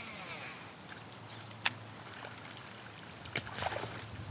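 Sharp clicks and knocks from a fishing kayak and its gear, twice, over faint lapping water. A short whirring hiss comes at the very start.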